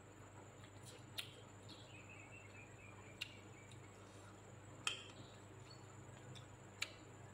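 Faint mouth sounds of someone eating by hand: four or five short, sharp smacks and clicks spread over several seconds, over a low steady hum.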